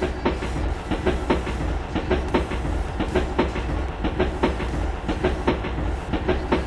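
A train rolling over rail joints: rhythmic clicking, about three a second, over a steady low rumble.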